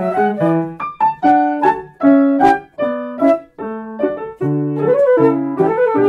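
Piano playing a passage of short, detached chords and notes, each dying away quickly, with brief gaps between phrases, in a piece for flute and piano.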